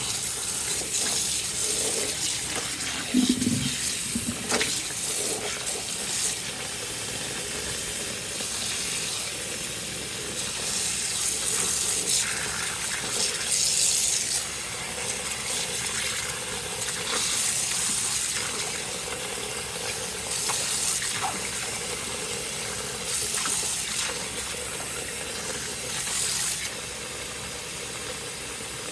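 Water running and splashing as a soaked cloth flag is rinsed by hand to work the soap out, with louder sloshing surges every few seconds and a brief low thump about three seconds in.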